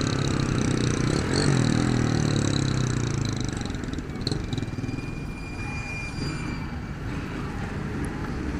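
Honda CG 150 Fan motorcycle's single-cylinder engine running at low speed in slow traffic, the revs falling away over a couple of seconds as it eases off, then running on low.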